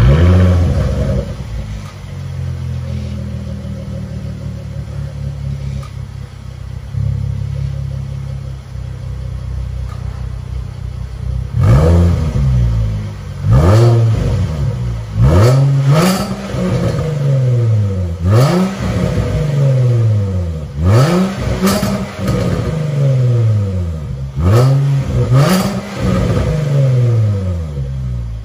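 Range Rover Velar P380's 3.0-litre supercharged V6 through a Fi Exhaust cat-back valvetronic exhaust, started with a sudden loud flare and then settling to a steady idle. From about twelve seconds in it is blipped about nine times, each rev rising sharply and falling back to idle.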